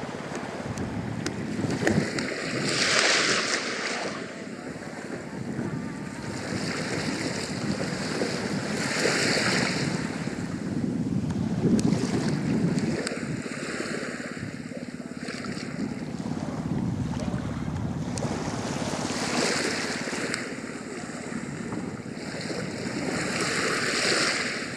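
Sea waves washing against a rock-built jetty, a steady wash that surges into louder hissing swells several times, with gusty wind on the microphone.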